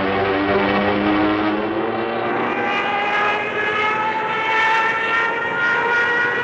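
A flying insect buzzing right at the microphone: a steady drone whose pitch rises slowly from about two seconds in.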